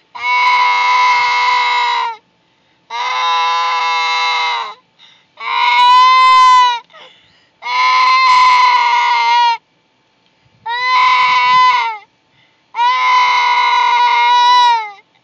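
Loud crying: six long, even wails of about one and a half to two seconds each, steady in pitch and falling off at the end, with short breaks between them.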